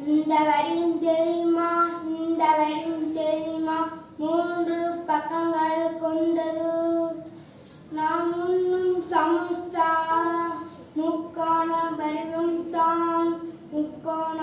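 A child singing a song unaccompanied, holding notes phrase by phrase, with short breaks about four seconds and eight seconds in.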